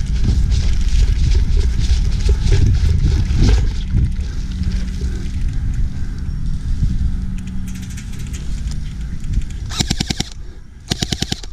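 Electric airsoft gun firing two short full-auto bursts near the end, about fifteen shots a second. Before them, several seconds of low rumbling and clattering noise on the body-worn camera as the player moves.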